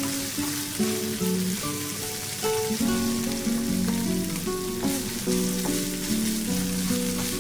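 Chicken-basil stir-fry sizzling in a hot pan as it is stirred, with a few light knocks of the utensil. Background music of plucked notes plays over it.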